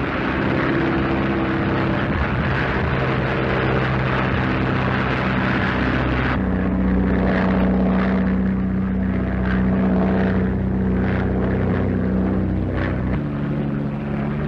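Biplane propeller engine droning steadily in flight, its pitch stepping to a different note about six seconds in and again near the end.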